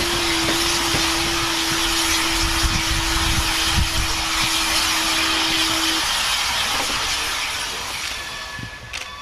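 Steam-hauled passenger train rolling past: a steady rush of wheel and steam noise with low knocks from the wheels. Over it a steady single-pitched tone holds until about six seconds in and then stops. After that the train noise fades away.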